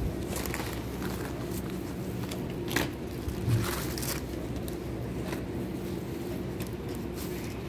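Supermarket background: a steady low mechanical hum, with a few short clicks and knocks from goods or a shopping cart being handled, the loudest about three seconds in.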